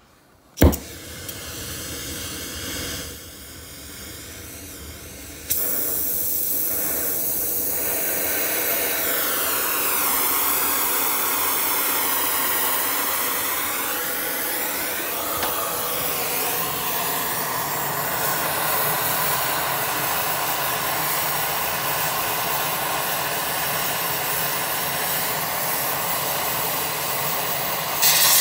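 Handheld gas brazing torch: a sharp click about half a second in, then the flame hissing steadily, louder from about five seconds in and again near the end, as it heats a copper tube joint on a refrigerator condenser for brazing.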